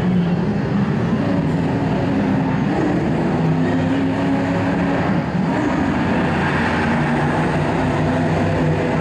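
Racing truck engines running as they lap the oval, with several engine notes shifting up and down in pitch.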